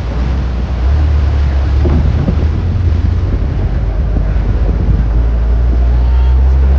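Open-top 4x4 jeep driving over rough ground, its engine a steady low drone that grows louder about a second in, with wind buffeting the microphone.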